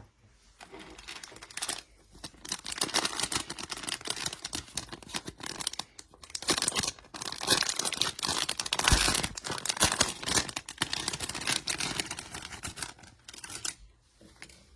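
Packaging being torn open and crinkled by hand as doll clothing is unwrapped: a long run of crackling and rustling, with a louder knock about nine seconds in.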